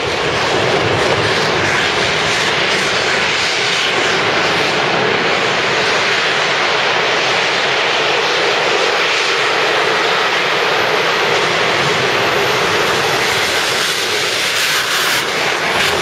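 Jet engine mounted on a four-wheeler (quad) running, a loud, steady rushing noise with no breaks.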